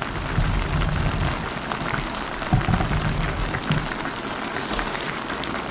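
Shrimp masala broth boiling in a pan on the stove: a steady bubbling hiss with scattered small pops.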